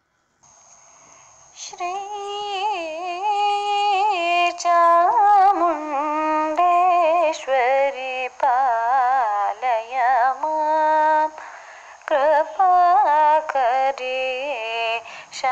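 A high female voice singing a devotional song to Sri Chamundeshwari solo, starting about two seconds in. It holds notes with sliding, wavering ornaments, with short breaks between phrases.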